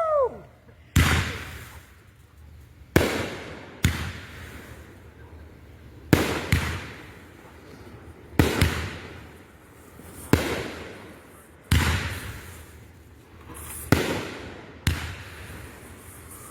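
Consumer fireworks shells bursting one after another: about ten loud bangs, one to two seconds apart, each trailing off in echo.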